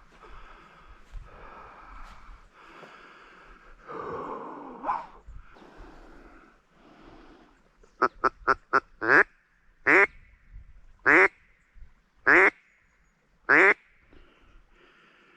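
A bird calling loudly: a quick run of four short calls about two-thirds of the way in, then five longer calls a little over a second apart.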